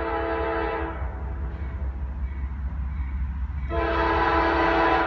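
Air horn of an approaching GE Dash 9 diesel locomotive sounding a multi-note chord. One blast cuts off about a second in, and a second blast starts near the end, over the train's steady low rumble.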